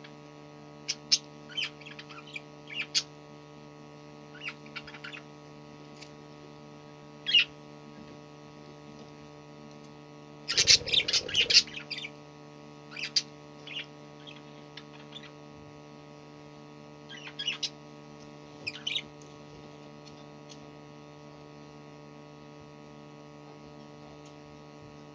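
Pet budgerigars chirping in short, scattered calls, with a louder flurry of chatter and rustling about ten seconds in. A steady electrical hum runs underneath.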